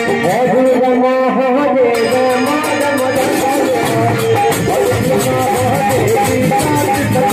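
Live kirtan music in a Holi tune: a wavering melodic line over steady, evenly repeating hand percussion.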